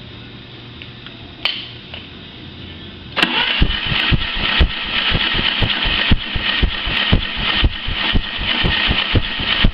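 Mercruiser 3.7 inline four-cylinder engine turned over on its starter for a compression test: a sharp click about a second and a half in, then about six seconds of steady cranking with an even, pulsing beat, starting about three seconds in.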